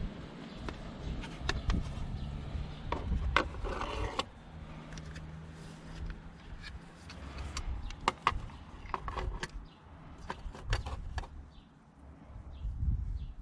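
Scattered clicks and plastic knocks of hands working a car headlight's H7 bulb fitting, with a brief low hum a few seconds in.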